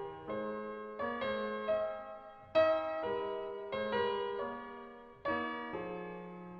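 Slow, gentle piano music: sustained chords struck about once a second, each one fading away before the next.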